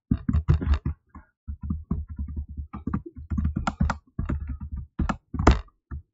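Typing on a computer keyboard: quick keystrokes in uneven runs, with short pauses between them and a few harder key presses in the second half.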